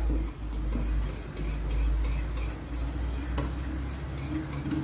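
Wire whisk stirring a thickening milk-and-cornstarch custard in a stainless steel saucepan, over a low steady hum. The whisk clinks lightly against the pan twice, about three and a half seconds in and near the end.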